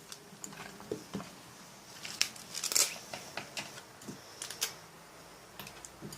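Small handling sounds of slime-making: scattered clicks, taps and crinkling rustles, with the loudest burst of crinkling about three seconds in.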